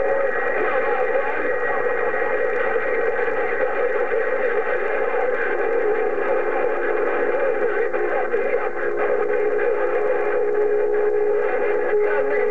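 CB radio receiver on channel 6 (27.025 MHz) playing long-distance skip: several distant stations' voices, distorted and echoing, piled on top of one another over band noise. A steady heterodyne whistle comes in about halfway through and is strongest near the end.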